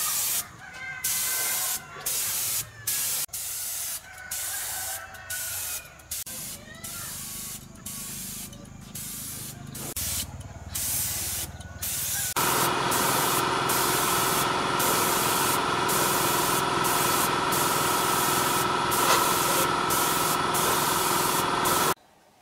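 Compressed air hissing from a spray gun, triggered in short bursts of about a second for the first half. About twelve seconds in it turns into one continuous spray hiss with a steady hum under it, which cuts off abruptly near the end.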